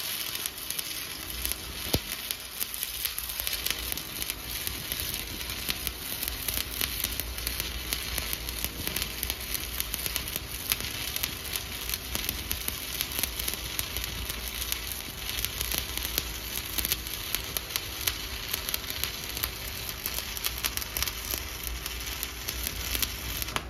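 Shielded metal arc (stick) welding with a 1/8-inch 7018 electrode at about 108 amps, running a vertical-up bead: the arc crackles and sizzles steadily with a dense patter of small pops.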